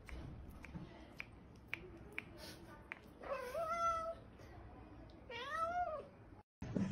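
A kitten meowing twice while it begs for a treat held above it. The first meow rises and then holds, and the second rises and falls. A few faint clicks come before the meows.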